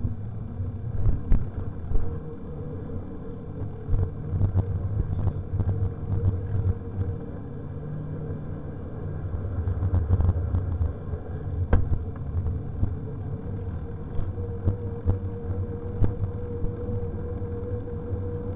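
Riding noise picked up by a bicycle-mounted camera: a steady low rumble of tyres on the concrete path and wind over the microphone, with frequent knocks and rattles as the bike rolls over bumps and slab joints. A faint steady whine runs underneath.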